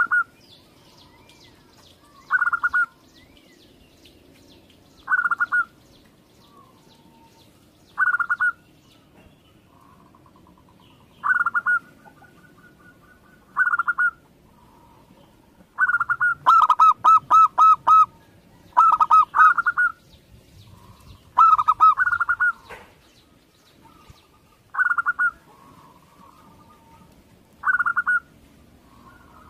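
Zebra doves (perkutut) cooing: a short rolling coo phrase repeated about every three seconds, with a busier stretch of rapid repeated notes in the middle. Faint, higher chirps of other small birds sit behind.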